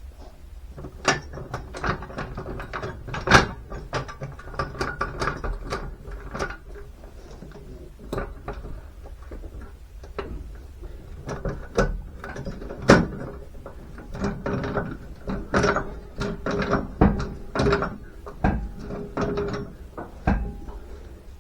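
Irregular clanks and clicks of a floor jack being set under the car and worked to raise it a little.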